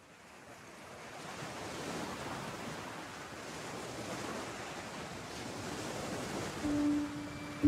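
Sea surf washing over a rocky shore, a steady rushing that fades in over the first couple of seconds. Near the end a held music note comes in.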